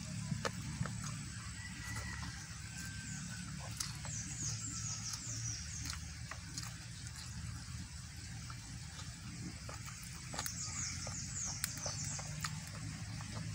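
Eating with bare hands: scattered wet clicks and smacks as a whole boiled chicken is pulled apart and chewed, over a steady low hum. Twice a bird gives a quick run of high falling notes.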